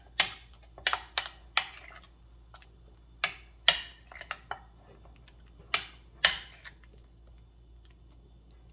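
Metal spoon clinking and scraping against a ceramic bowl while stirring thick mayonnaise, in irregular strokes that stop about seven seconds in.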